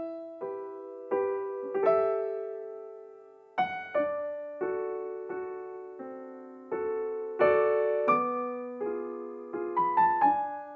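Background music: a slow, gentle piano piece, single notes and chords struck and left to ring and fade.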